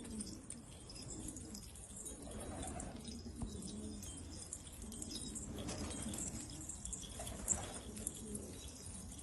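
Domestic pigeons cooing: repeated low coos, with faint high-pitched chirping over them.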